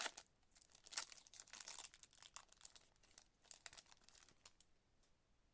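Trading card pack wrapper being torn open and crinkled in the hands, a dense irregular crackling that stops about four and a half seconds in.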